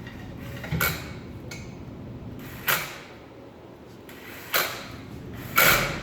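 Four short mechanical scrapes and clatters of parts being handled, spaced about two seconds apart, the last the loudest.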